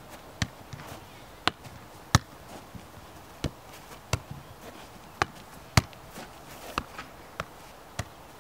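Soccer ball being juggled and kicked: about ten sharp thuds at irregular intervals of half a second to a second, each a touch of the ball.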